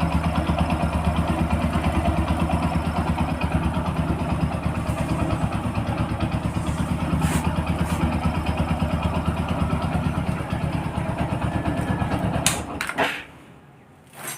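Hero HF Deluxe motorcycle's single-cylinder four-stroke engine idling steadily, running with a newly fitted timing chain that replaced a noisy one. The engine is switched off about 13 seconds in, and the sound stops abruptly.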